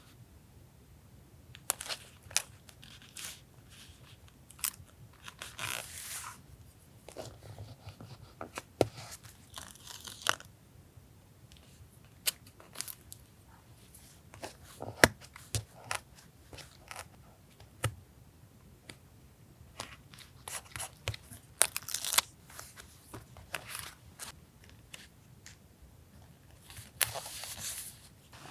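Paper, tape and stickers handled at a desk during journal collage: scattered light taps and clicks, with a few short bursts of paper rustling and tearing as pieces are peeled, torn and pressed down.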